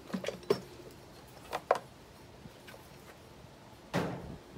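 A few short knocks and clunks of metal parts being handled as an outboard's intake manifold is worked loose, the loudest clunk about four seconds in.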